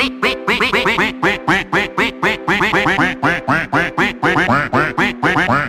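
Upbeat novelty background music made of rapid, short arching notes in a quick rhythm, broken by brief gaps.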